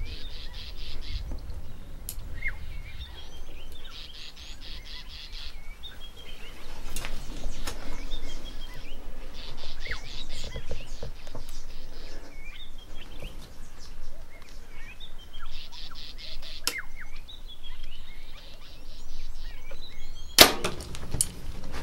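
Birds chirping, with a high rattling trill that repeats every few seconds. Near the end comes one sharp, loud snap of a compound bow being shot at impala, followed by a few quick clicks as the herd bolts.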